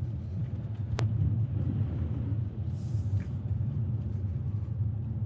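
Inside a car's cabin: a steady low rumble of the engine and tyres on a wet, rough single-track road. A single sharp click comes about a second in, and a short hiss near the middle.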